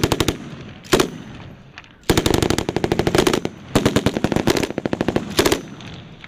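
Belt-fed machine gun firing in bursts: two short bursts about a second apart, then two longer strings of rapid automatic fire, and a short burst near the end.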